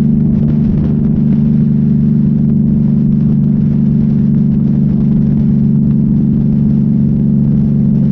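Peterbilt truck's diesel engine droning steadily under way, a loud, even low hum with a hiss of road and wind noise above it.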